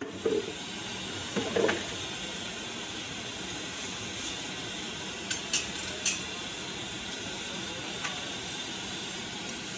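Steady hissing noise with a few light clinks and knocks, two of them close together about a second and a half in and two more between five and six seconds in.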